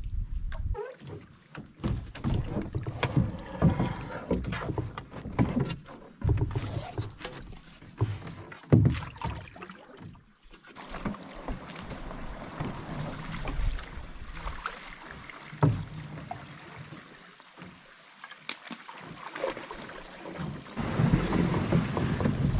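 Canoes being paddled on a slow, narrow river: irregular paddle strokes and splashes, with knocks of paddles against the hulls. A steadier rush of water or wind noise comes in near the end.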